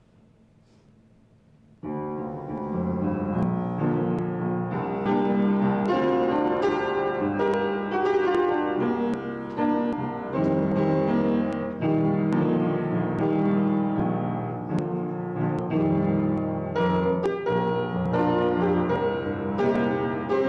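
Piano music that starts abruptly about two seconds in after near silence, with chords and runs of many notes.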